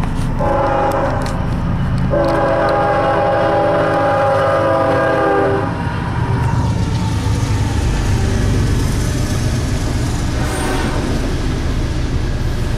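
Freight locomotive air horn sounding a chord in two blasts, a short one then a long one, as the train approaches a grade crossing. The horn stops and the locomotives and freight cars rumble past, with steady wheel noise on the rails.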